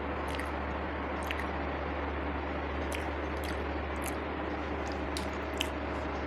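A person chewing food with wet mouth clicks and smacks, about seven sharp ones spread unevenly, over a steady hiss and low hum.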